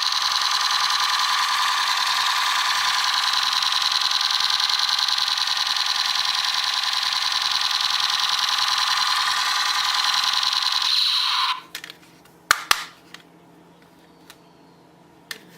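Battery-powered toy gun's electronic firing sound effect, a steady buzzing rattle held for about eleven seconds that cuts off suddenly, followed by a few sharp clicks.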